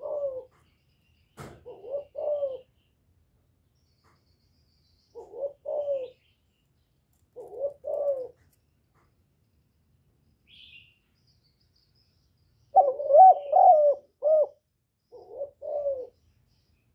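Spotted dove cooing: short phrases of two or three low notes every couple of seconds, then a longer, louder run of coos about thirteen seconds in.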